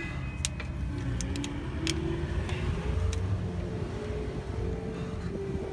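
A steady, low vehicle rumble with a hum that rises slowly in pitch, with several sharp clicks in the first few seconds, typical of hand tools on the transmission pan bolts.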